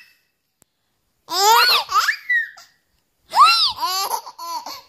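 A baby laughing and squealing happily in two bursts of high, rising-and-falling voice, the first about a second in and the second from just past the middle to the end.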